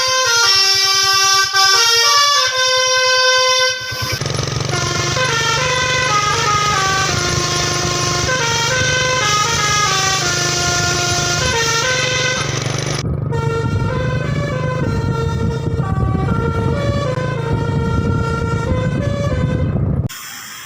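Indonesian bus 'telolet' horn, a multi-tone musical air horn, playing a tune of stepped horn notes that breaks off and starts again about four seconds and about thirteen seconds in. From about four seconds in, an engine's low hum runs underneath.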